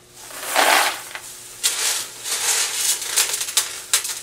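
M&M's candies being stirred by gloved hands in a stainless steel pot: the hard-shelled candies rattle and rustle against each other and the pot in irregular bursts, the loudest about half a second in.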